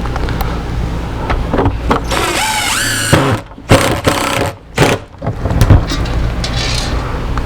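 Power drill driving screws, running in spurts: its motor whine rises about two seconds in, then it stops and starts several times with sharp clicks through the middle.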